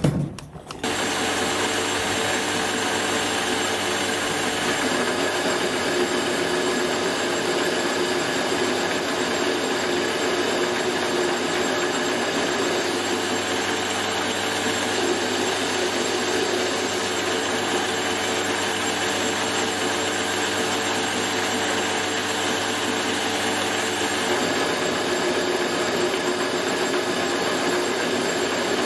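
Metal lathe starting up about a second in and running steadily while facing the shoulder of a hinge pin, its hum shifting slightly about 24 seconds in.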